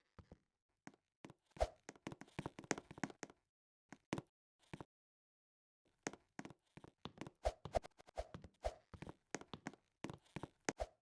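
Irregular taps and thumps, some single and some in quick runs, with silence between; the loudest thump comes about one and a half seconds in.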